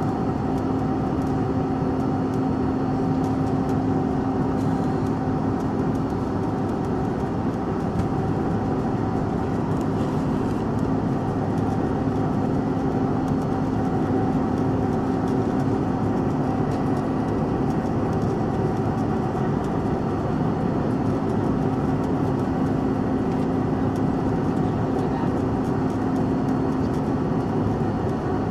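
Steady cabin noise of a CRJ-700 jet in flight: its rear-mounted GE CF34 turbofan engines and the rushing air, heard from inside the cabin, with a steady low hum running through it.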